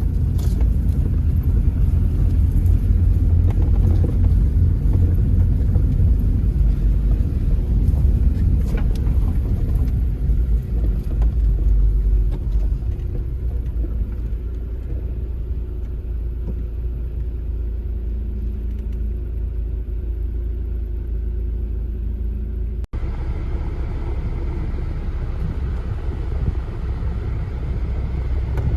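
Off-road SUV driving over rough ground: a steady low engine and drivetrain rumble, louder in the first half, with a sudden brief dropout at a cut about 23 seconds in.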